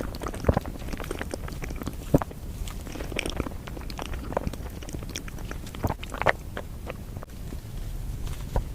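Close-miked mouth sounds of someone eating a matcha dessert: irregular chewing and biting with wet clicks and smacks, a few sharper ones standing out about two seconds in and around six seconds in.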